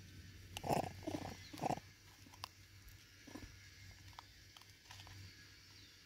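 Vervet monkey giving three short, low, pulsed grunts in quick succession about a second in, then a fainter one midway, with scattered light ticks and taps around them.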